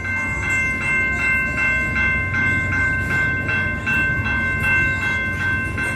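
Level-crossing warning bell ringing, loud and steady at about three strikes a second, over the low rumble of a train passing over the crossing.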